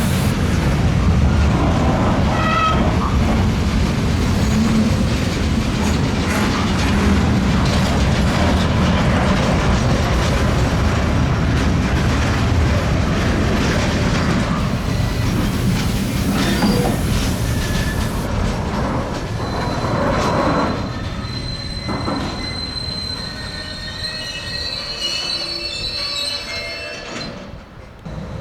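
Intermodal freight train pulling out, its wagons rolling over the rails with a heavy rumble. In the last several seconds, high-pitched wheel squeal sets in as several steady tones, while the rumble eases.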